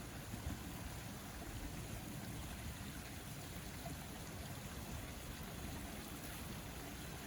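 Steady outdoor rushing noise with a flickering low rumble underneath.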